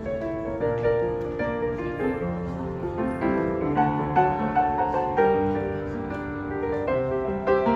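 Background music led by piano: a gentle melody over held chords.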